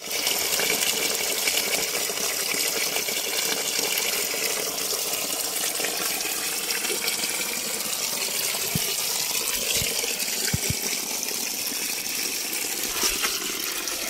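Water from a natural spring gushing and pouring steadily, a constant rushing splash.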